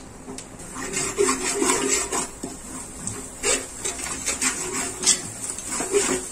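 A spoon scraping and knocking against the sides and bottom of a metal cooking pot as a thick masala is stirred, in short irregular strokes.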